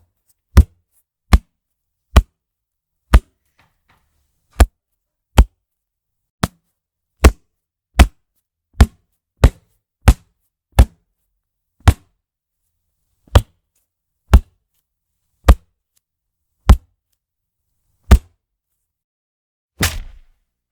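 Punch sound effects: about twenty short, sharp single hits, each followed by silence, spaced unevenly between about half a second and a second and a half apart. Near the end a longer, rougher-sounding punch comes in.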